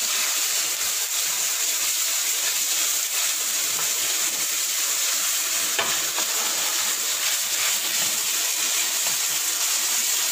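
Marinated beef strips sizzling in a hot wok with a steady hiss, while a spatula stirs and scrapes them about.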